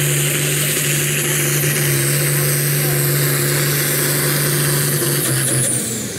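Red International Harvester tractor's diesel engine running hard under full load, pulling the sled. About five seconds in, the engine note drops and the high turbo whine falls away as the pull ends.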